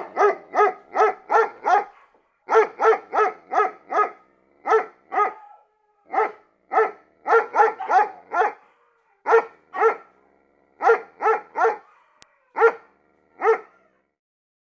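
A dog barking repeatedly in quick runs of two to six barks, about three a second, with short pauses between the runs; every bark has much the same fairly high pitch.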